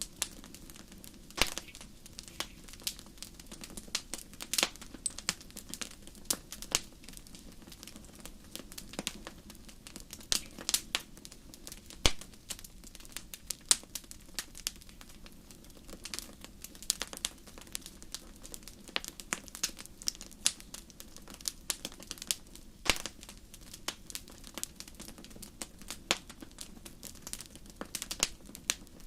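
Fire crackling: irregular sharp pops and snaps, some louder than others, over a low steady rumble.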